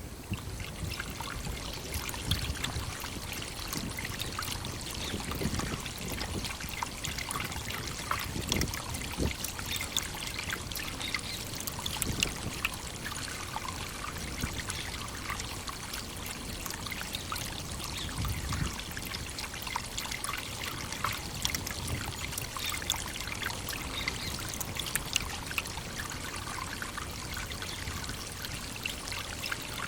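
Small waterfall: water pouring and trickling steadily, with many little splashes of droplets over the even rush.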